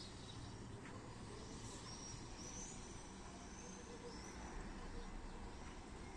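Swallows twittering faintly: a few short, high chirps over steady low background noise.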